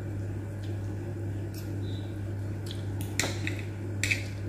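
A few light clicks and scrapes of cutlery on a ceramic plate as food is cut, the sharpest a little after three seconds in. A steady low hum runs underneath.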